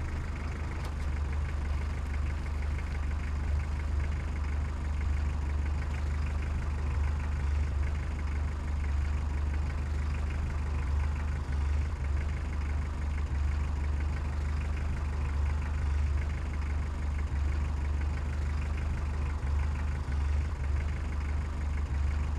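Steady low engine drone, like a diesel idling, from a 1:14 scale RC construction machine's engine sound.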